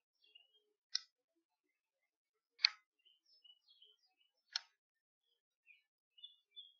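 Three sharp, faint clicks about two seconds apart, with faint short high chirps in between.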